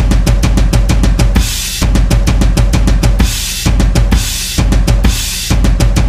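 Loud drum-led music: a fast, steady beat of bass drum and snare with cymbal crashes every second or two.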